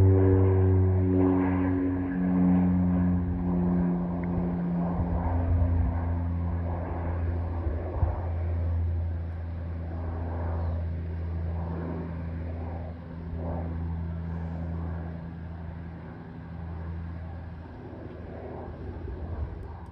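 Engines of an airplane climbing away after takeoff: a steady drone whose tones slide lower over the first few seconds, fading gradually as the aircraft recedes.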